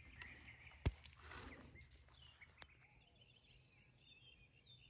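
Very quiet outdoor ambience with faint high chirps, broken by one sharp click a little under a second in and a smaller tick a couple of seconds later.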